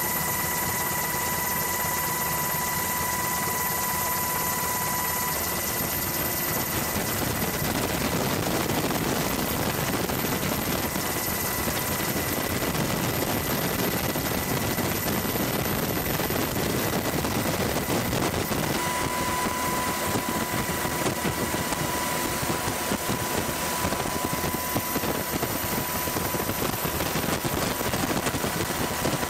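Steady, loud engine drone with a thin high whine that drops out partway through and comes back later.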